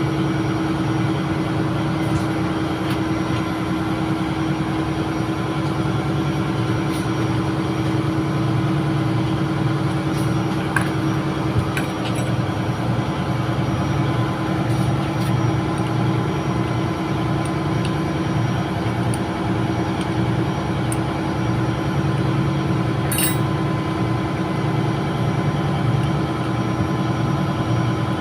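Steady drone of a ship's running diesel machinery, a constant hum with a held tone, broken by a few faint clicks.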